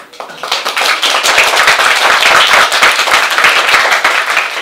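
Audience applauding, many hands clapping at once; it builds over the first second and dies away near the end.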